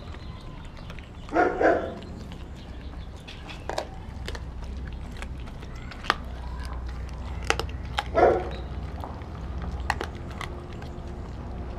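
Doberman chewing raw meat: scattered sharp clicks of teeth, with two louder bursts about a second and a half in and about eight seconds in. A steady low rumble runs underneath.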